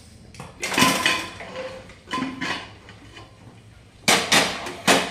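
A metal pressure cooker is opened: its lid and whistle weight are handled and set down on the stove with several metal clanks and knocks. The loudest are two sharp clanks near the end.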